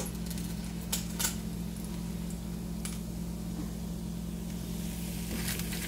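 Metal tongs clicking a few times against a frying pan while turning and lifting fried taquitos, over a steady low hum.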